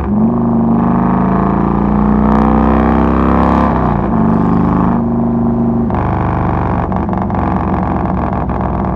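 A 2006 Harley-Davidson Softail Deluxe's Twin Cam 88B V-twin engine pulling under way. The revs climb, then drop at a gear change about four seconds in before building again.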